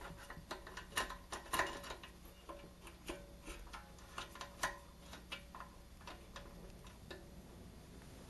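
Irregular light metallic clicks and taps, some with a short ring, as small parts and a tool are handled while a small vent hose holder is refitted to a Predator 212 engine.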